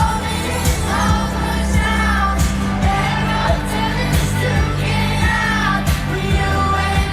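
Live pop song: a woman singing over a heavy synth bass line and a steady kick-drum beat.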